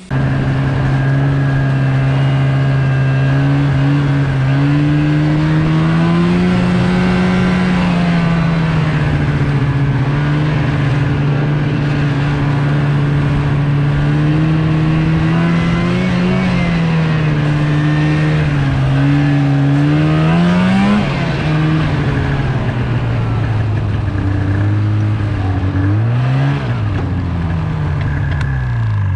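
Polaris snowmobile engine running under throttle as the sled rides along a trail, heard close from the rider's seat, its pitch rising and falling with the throttle. About two-thirds of the way through it eases off, gives a couple of quick revs, and drops away as the sled slows near the end.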